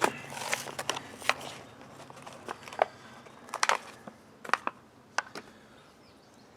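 Packaging crinkling and crackling as a roll of awning repair tape is taken out of it: irregular sharp crackles that thin out and stop about five seconds in.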